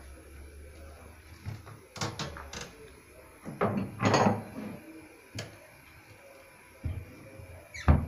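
Irregular knocks and clatters of kitchen handling, with the loudest cluster a bit over halfway through and one hard knock just before the end.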